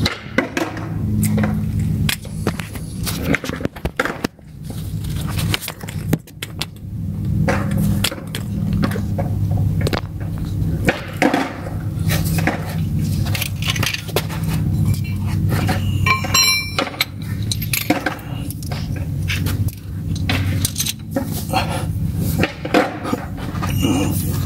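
Old engine oil draining from a Toyota Prius's sump into a plastic drain pan, with frequent small clinks and scrapes of tools and the pan being handled.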